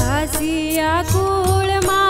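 Gujarati devotional song: a woman sings a bending, ornamented melody over regular percussion strokes and a steady bass drone.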